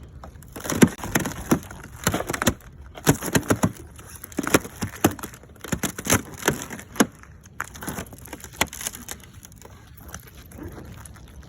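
Footsteps crunching over dry twigs and brush, with irregular snapping and crackling, thinning out near the end.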